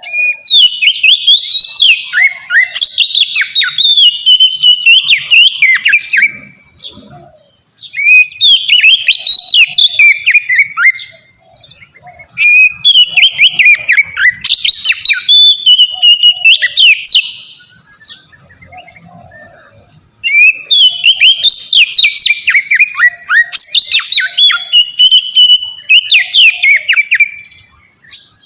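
Oriental magpie-robin (kacer) singing full, open song: long phrases of rapid, varied whistles and trills, four phrases in a row with pauses of one to two seconds between them.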